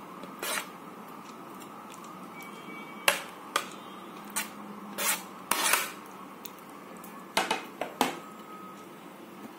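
Perforated steel skimmer clinking and scraping against a plate and the rim of a stainless steel pot as cooked rice is scraped into the pot: a dozen or so irregular sharp clinks and taps, most of them in the middle and latter part.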